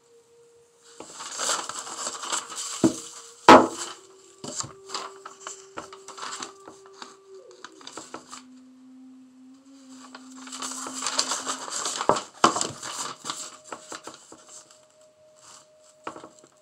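A sheet of paper rustling and crinkling as it is handled on a sand painting, in two spells of a few seconds each, with a sharp knock about three and a half seconds in. Soft steady background tones step in pitch every few seconds underneath.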